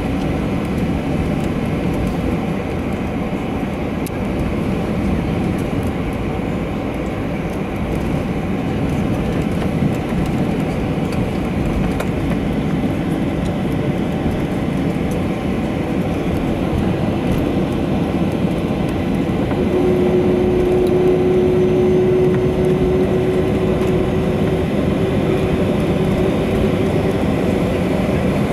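Cabin noise inside a Boeing 737-800 taxiing: a steady rumble from its CFM56 turbofan engines at low thrust and the aircraft rolling along the taxiway. About two-thirds of the way through a steady humming tone joins in and the noise grows slightly louder.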